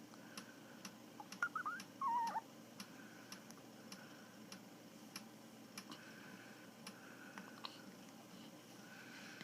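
A newborn baby's hiccups: a few short, high, squeaky hics about one and a half to two and a half seconds in, over a faint, even ticking about twice a second.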